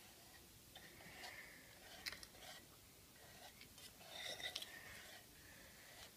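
Faint scrapes and light knocks of a wooden spoon against a saucepan as glaze is scraped out onto a cake, clearest about two seconds in and again in a short cluster just after four seconds.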